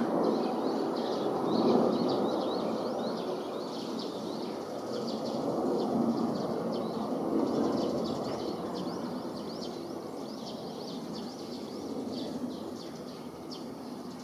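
Distant jet engines of a climbing Embraer 170 regional jet: a steady rushing noise that swells and ebbs and slowly fades as the aircraft climbs away. Small birds chirp throughout.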